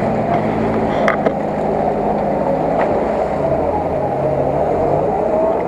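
Off-road 4x4 engine running under load as the vehicle wades through a river, with water churning and splashing around it.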